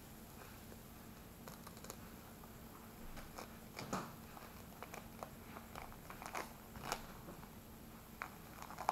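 Thick outer skin of a luffa gourd being peeled by hand off the fibrous sponge: scattered crackling and tearing snaps, sparse at first and coming thicker from about three seconds in.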